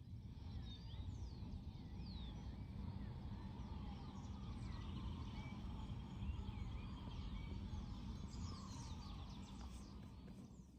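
Many birds chirping and calling, in short rising and falling notes, over a steady low outdoor rumble.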